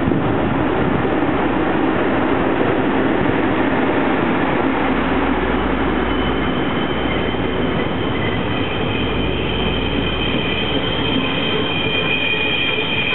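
Twilight Express passenger coaches rolling past behind an EF81 electric locomotive, with a steady rumble of wheels on the rails. About six seconds in, a high squeal from the wheels sets in and grows louder.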